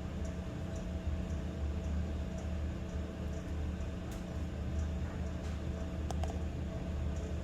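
Steady low background hum with a faint steady tone, about two faint ticks a second, and a few light clicks about four and six seconds in.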